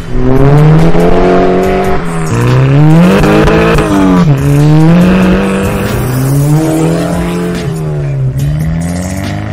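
Volkswagen Golf GTI MK6's turbocharged four-cylinder engine through an XForce performance exhaust, accelerating hard. The engine note climbs, drops sharply at each upshift, and climbs again several times.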